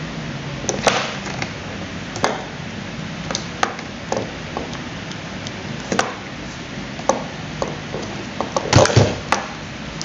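Scattered small plastic clicks and taps as a rocker switch and its wire connectors are handled and pressed into the plastic base of an Imarflex coffee maker, with a quick cluster of louder knocks near the end.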